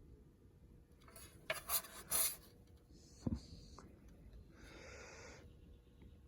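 Hands handling and rubbing an old car reflector: a few short scraping rubs about a second and a half in, a single small knock a little after three seconds, and a softer rub near five seconds.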